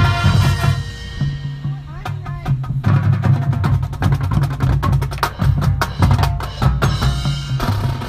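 Marching band playing, with drums and percussion over low brass notes. The drum strokes thin out briefly about a second in and pick up again, dense and rapid, about three seconds in.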